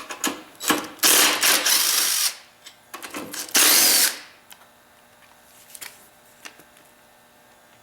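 Power tool with a 10 mm socket spinning out bolts on an ATC: one run of about a second and a quarter, a shorter run a couple of seconds later, with clicks of handling between them.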